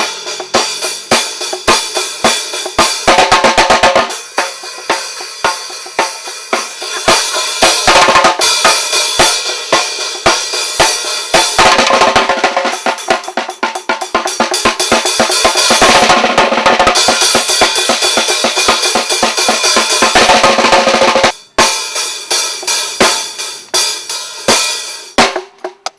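Drum kit played live: kick, snare and hi-hat in a steady beat with repeated cymbal crashes. It breaks off briefly and stops just before the end.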